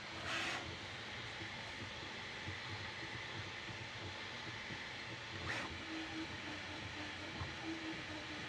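Bambu Lab A1 Mini 3D printer running a print: a steady fan hum with its stepper motors whining faintly as the head moves. Two brief hissing swishes come just after the start and about five and a half seconds in.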